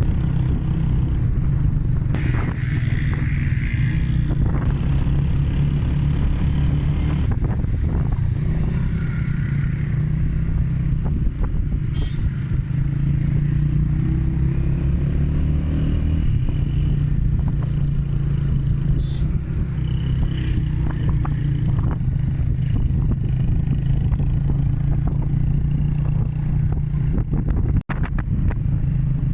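A car's engine and road noise, a steady low hum, while it drives uphill on a mountain road, with scattered knocks and rattles. The sound cuts out for an instant near the end.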